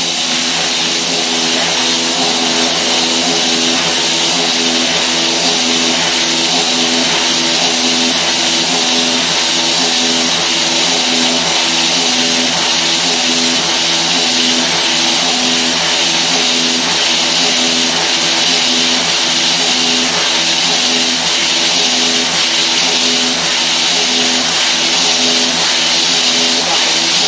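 Haas CNC mill cutting 1018 steel with a 3/8-inch carbide end mill at over 11,000 rpm and high feed: a loud, steady machining whine of several tones over a continuous hiss.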